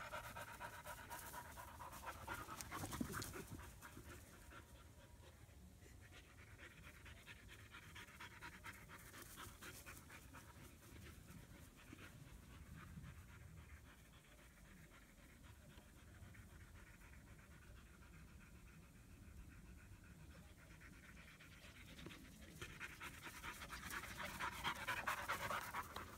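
German Shepherd puppy panting hard and fast, the sign of a dog worn out from play. It is loud and close near the start, fades to a fainter pant through the middle, and comes up close again near the end.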